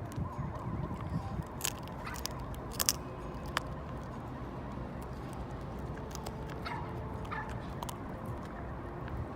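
A dog chewing a chicken-wrapped lamb-flap chew, with a few sharp crunches and clicks of teeth, the loudest about three seconds in, and some short squeaky sounds later on.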